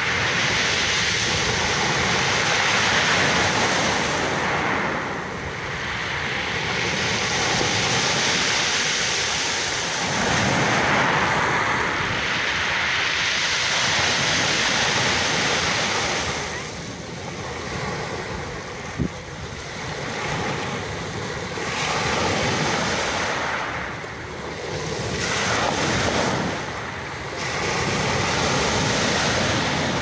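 Rough Black Sea surf left by a storm, breaking and washing up a pebble beach, with wind. The rush swells and eases every few seconds as each wave comes in. There is one brief click about two-thirds of the way through.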